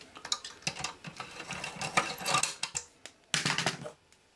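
Small clicks and light metal clatter of hands handling circuit boards in a metal card cage, with a short scraping rustle about three and a half seconds in.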